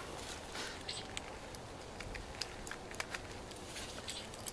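Faint, irregular small clicks and taps of hands fitting a male adapter onto the wire conduit.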